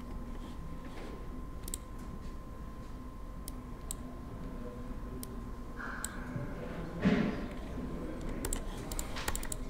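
Scattered computer mouse and keyboard clicks, more of them near the end, over a faint steady whine. There is one short louder sound about seven seconds in.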